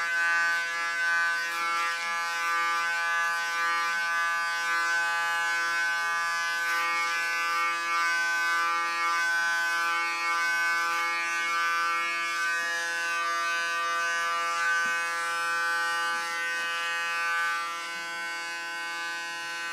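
Electric hair clipper running with a steady hum while trimming very short hair.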